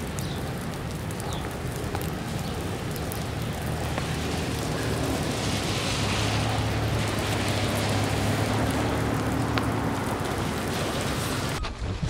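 Steady rain, with a low hum joining in about four seconds in. The sound breaks off abruptly near the end into a run of clicks.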